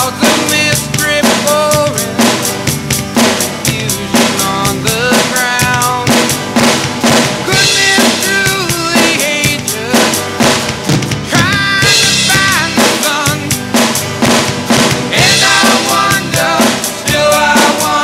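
Rock drum beat with bass drum, snare and cymbals played on an electronic drum kit, along with a recorded rock song with singing and guitar.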